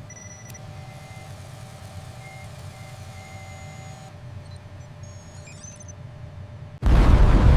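Steady low machinery hum with electronic warning beeps, held tones sounding on and off at a few different pitches. About 6.8 seconds in, a sudden loud rushing roar cuts in and becomes by far the loudest sound.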